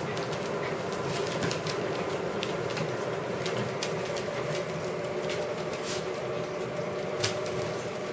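Poodles' claws clicking and tapping irregularly on a tile floor as adult dogs and puppies scramble about at play, over a steady hum.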